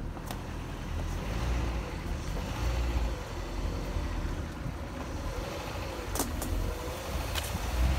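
Modified Dodge Neon's four-cylinder engine and tyres rumbling low and steady as the car drives slowly along a dirt trail, with three sharp knocks.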